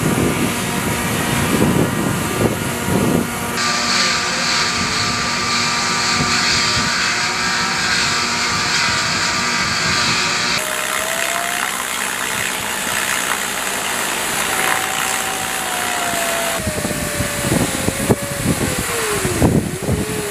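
Deck noise of a warship underway at sea: wind and the rush of water over a steady machinery hum, with gusts buffeting the microphone at the start and near the end. A thin whistle slides down in pitch in the second half, and the sound changes abruptly a few times.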